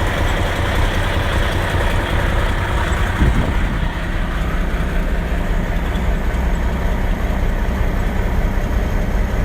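Vehicle engine running with a steady low rumble, with a brief swell just after three seconds in.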